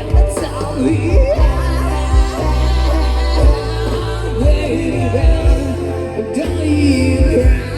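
Live pop band playing amplified, with a singer's voice over a deep bass line and a kick drum beat.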